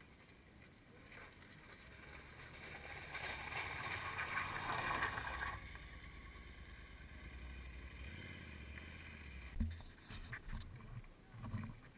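An adventure motorcycle riding closer and passing on the gravel track, growing louder to a peak about five seconds in and then dropping off suddenly. A few knocks follow near the end.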